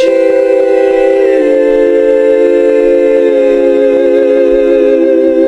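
Loud sustained choir-like chord of several held voices, one part stepping down to a lower note about a second and a half in; a heavenly 'aah' sound effect.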